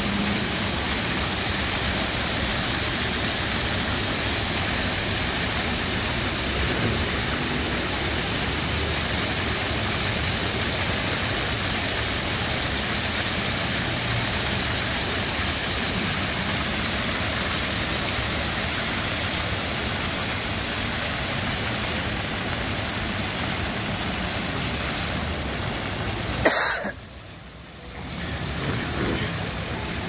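Floor-level fountain jets spraying and splashing onto paving, a steady hiss of falling water. About 26 s in, a sharp click and the splashing cuts out abruptly, then a quieter splashing returns as the jets come back lower.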